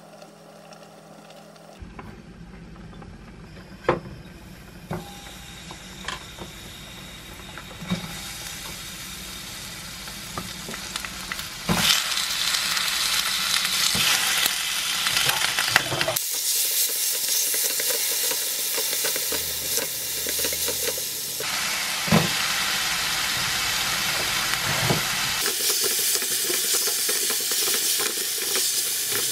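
Shrimp, Vienna sausages and onion sizzling as they stir-fry in a frying pan, stirred with a wooden spatula. The sizzle is quieter at first and much louder from about twelve seconds in, with several sharp knocks in between.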